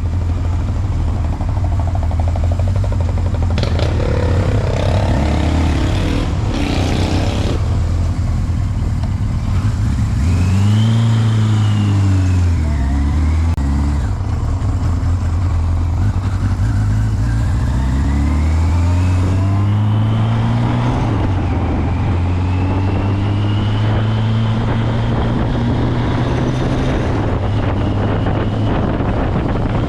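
Motorcycle engine running on the move, with wind rush. The engine pitch rises and falls twice, about ten seconds in and again about seventeen seconds in, as the bike accelerates and eases off.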